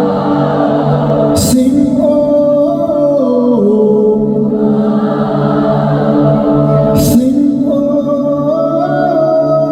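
Live band playing a slow song, with several voices singing long held notes over sustained chords. Two sharp percussive hits come about a second and a half in and again about seven seconds in.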